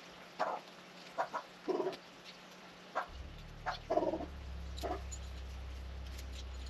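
Chickens clucking in short, separate calls. A steady low hum starts about three seconds in.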